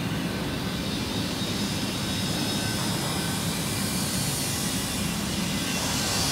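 Steady industrial din of E-TPU foaming molding machines running: a low hum with a broad hiss above it, the hiss swelling briefly near the end.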